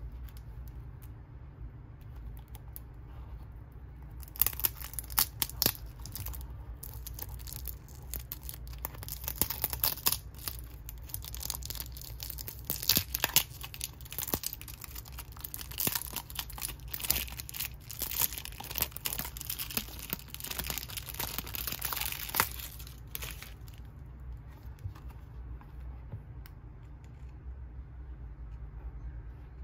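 Clear plastic wrapping being torn and peeled off a small cardboard toy-car box, crinkling and tearing sharply from about four seconds in until about six seconds before the end, over a low steady hum.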